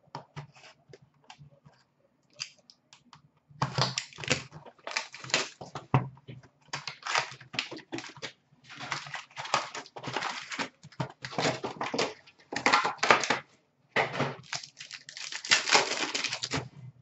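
Trading card pack wrappers being torn open and crinkled by hand. There are scattered light clicks and rustles at first. From about three and a half seconds in come dense, repeated bursts of crinkling and tearing.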